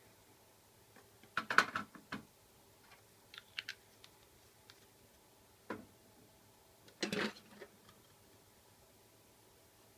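Light clicks and knocks of small parts being handled on a workbench, in four short clusters separated by quiet, the loudest about a second and a half in.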